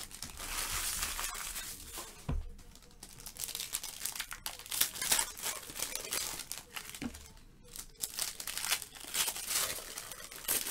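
Foil trading-card packs (Panini Select football) crinkling and being torn open by hand, in a run of irregular crackles and rustles.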